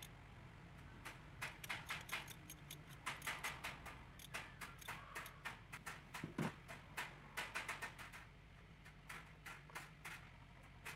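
Faint, irregular clicks and taps of ignition coils and plastic parts being handled on a Nissan QR20 engine's valve cover, as a coil is pressed back into its spark-plug well, over a steady low hum.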